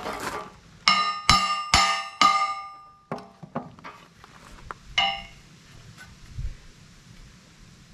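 Hammer striking heavy steel plate: four quick ringing blows about a second in, lighter knocks after, and one more ringing blow about five seconds in. The blows tap the end plate out a hair to square it against the I-beam.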